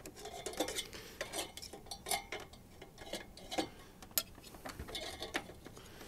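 Wire fan-mounting clips and a cooling fan being fitted to the metal fins of a tower CPU cooler heatsink: many small, irregular metallic clicks and light scrapes.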